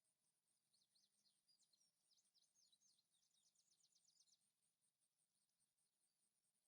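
Near silence, with a faint small bird singing a quick run of high, varied notes that ends in a rapid series of repeated notes, lasting about four seconds from just after the start.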